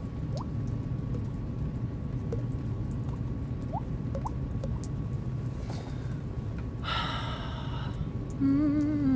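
Water-drop sounds made with the mouth: a few soft, short rising "plip" blips from fingers tapped against pursed lips. About seven seconds in comes a brief breathy vocal sound, and near the end a short hummed note.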